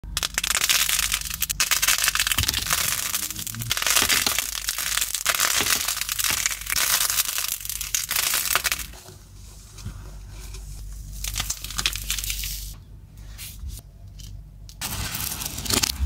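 Crumbly dyed clay blocks being squeezed and broken apart by hand: continuous crunching and crackling for about the first half, then quieter with scattered cracks, growing louder again near the end.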